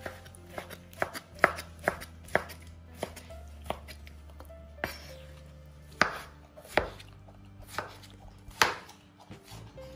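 Chef's knife chopping tomatoes on a wooden cutting board: sharp, irregular knocks of the blade striking the board, several in quick succession at first, then more spaced out.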